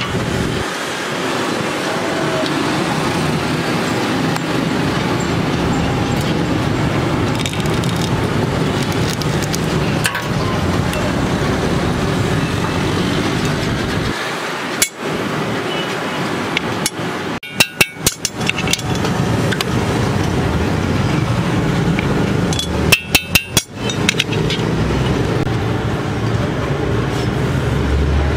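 Steady traffic and street noise, broken by two short runs of sharp, ringing hammer blows on a chisel and sheet steel laid over a steel block, the first a little past halfway and the second near the end.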